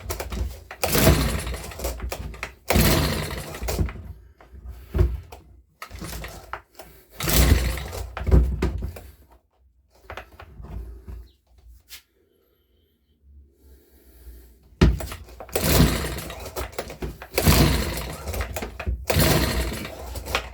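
Makita BHX2500 four-stroke leaf blower being pull-started again and again: each pull of the recoil starter cord spins the engine over with a short whirring rush, in a string of pulls with a pause in the middle, and the engine never catches. It is failing to start from cold, which the owner suspects is a fuel problem.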